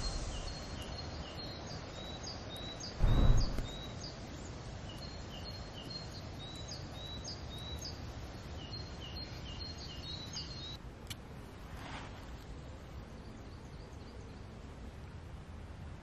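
Woodland birdsong: a small songbird repeating short, high notes at two pitches over a steady outdoor background, stopping about eleven seconds in. A brief loud whoosh breaks in about three seconds in.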